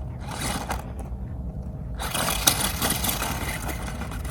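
Remote-control Megalodon Storm monster truck's electric motor and tyres driving over rough ground in two bursts of throttle, a short one near the start and a longer one about halfway through, over a steady low rumble.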